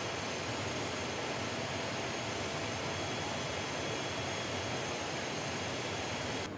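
Steady rushing air and machine hum of a car-body paint shop, with faint high whining tones on top. It drops suddenly quieter near the end.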